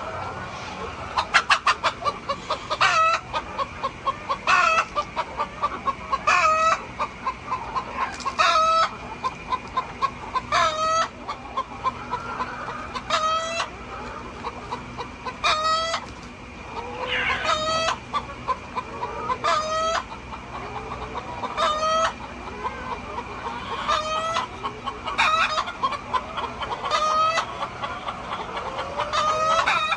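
Chickens clucking and calling, a loud call about every two seconds over the steady chatter of the flock.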